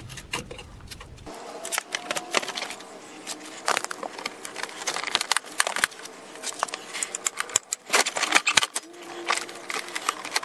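Plastic clips of an ABS wheel-speed sensor wiring harness being pried loose with a screwdriver and the harness connector unclipped by hand: a run of sharp, irregular clicks, snaps and small rattles.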